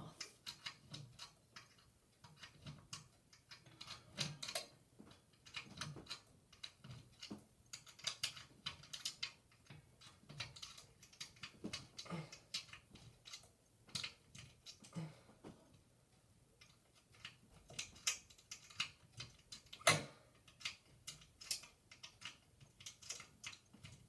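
Faint, irregular small clicks and ticks of a screwdriver turning a screw into a ceiling fan blade's mount, with the blade and fan hardware being handled. One louder click about twenty seconds in.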